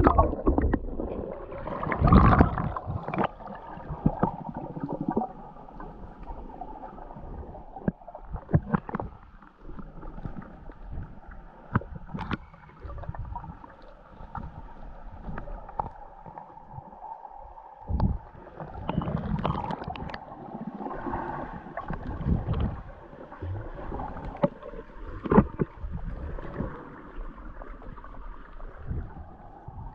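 Muffled underwater sound picked up by a camera held below the surface while swimming: water gurgling and moving around it, with irregular thumps and knocks from the swimmer's movements, the loudest about two seconds in.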